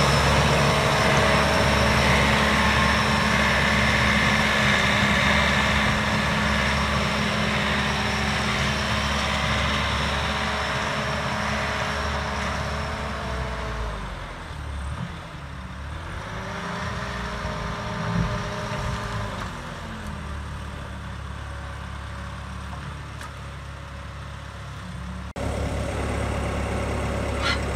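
Bobcat compact track loader's diesel engine running as the machine drives off, growing fainter as it moves away. About halfway through, the engine note drops and comes back up a couple of times. Near the end there is a sudden jump to the same engine running steadily up close.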